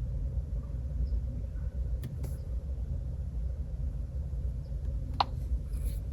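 Low steady rumble, with two faint clicks a little after two seconds in and a short sharp click about five seconds in.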